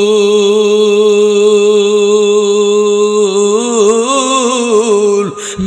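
A man's voice singing a waz lament, holding one long, steady note on the last syllable of "modhu" ("sweet"). About three seconds in it breaks into a wavering, ornamented run before a short break near the end.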